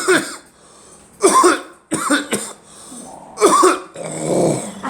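A person coughing in a run of short, harsh coughs, about one a second, with a longer, lower one near the end. It is a congested cough that the cougher puts down to allergies and paint fumes, just starting to loosen up.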